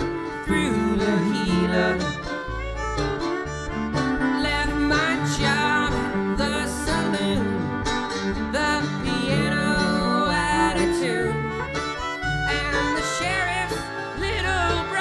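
Live folk band playing an instrumental passage: guitar and bass under a wavering lead melody line, with a steady beat.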